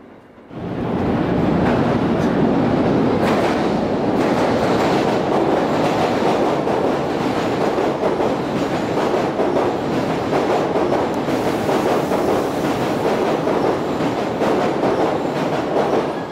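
Electric passenger train passing at speed close by, a loud steady rumble with wheel clatter on the rails. It starts abruptly about half a second in.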